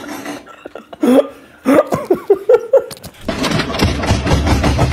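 Short bursts of laughter and chuckling, then about three seconds in a louder, steady, rapidly pulsing rumbling noise starts abruptly and keeps going.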